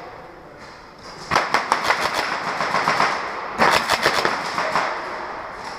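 Airsoft guns firing two rapid bursts of shots, each about a second long: the first about a second in, the second midway through.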